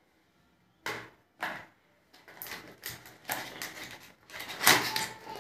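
Hands handling a cardboard product box and its foam insert on a wooden table: two short sharp knocks, then a run of irregular scraping and rustling, loudest near the end.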